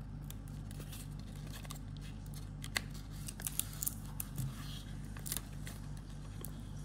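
Tape-laminated paper being handled and taped, with scattered crinkles and small clicks of the plastic-coated paper and sticky tape, over a steady low hum.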